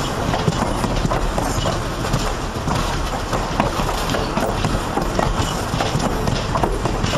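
Passenger cars of a long train rolling past at close range: steel wheels rumbling and clacking over the rail joints in a dense, irregular stream of clicks.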